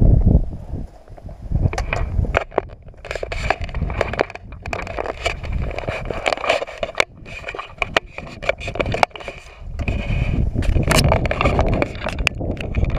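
Footsteps crunching and scraping over loose limestone rock, with a trekking pole tapping on stone: an uneven run of sharp clicks and knocks.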